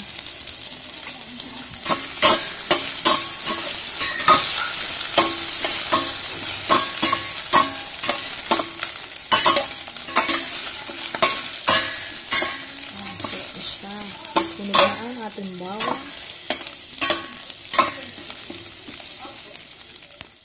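Chopped garlic, ginger and onion sizzling in hot oil in a stainless steel pot while a metal utensil stirs them, with frequent clicks and scrapes of metal against the pot. A brief squeaky scrape comes about three-quarters of the way through.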